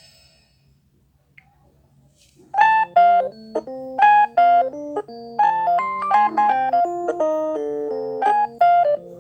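An LG phone ringtone: a melody of short electronic piano-like notes and chords, several notes a second, played on an LG G8 ThinQ. The last notes of one ringtone die away, and after about two seconds of near quiet the next ringtone starts.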